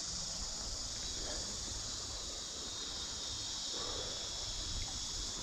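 Steady chorus of insects: an unbroken, high-pitched shrill drone.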